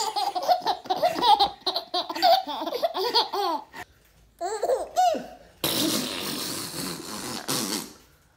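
A baby laughing in quick, high-pitched bursts for about three and a half seconds. After a short pause come a few brief vocal sounds, then a steady breathy hiss lasting about two seconds near the end.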